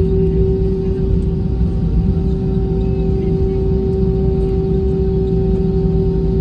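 Jet airliner engines and airflow heard inside the cabin while taxiing: a steady hum with a few constant tones over a low rumble.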